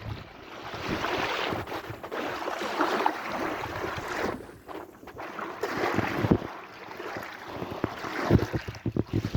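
Sea waves washing in and drawing back, the noise swelling and easing, with wind buffeting the microphone in short low thumps near the end.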